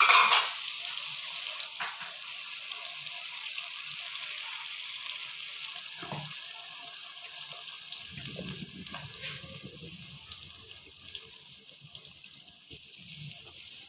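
Cream-based jalfrezi gravy sizzling steadily in an aluminium pot, with a couple of light clicks. The sizzle fades a little near the end.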